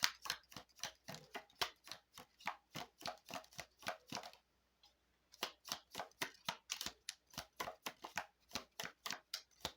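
Oracle cards being shuffled by hand: a quick run of soft card clicks and flicks, about four or five a second, with a short pause a little before the middle before the shuffling resumes.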